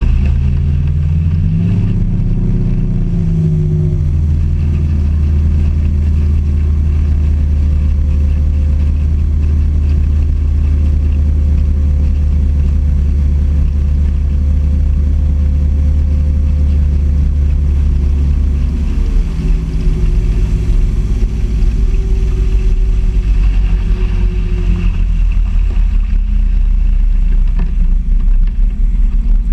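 Yamaha VMAX SHO 225 hp V6 four-stroke outboard driving a Ranger Z119 bass boat at speed over the rush of water, heard close up from the stern. The engine note climbs in the first few seconds and then holds steady. About two-thirds of the way through it drops and turns rougher as the boat comes off plane.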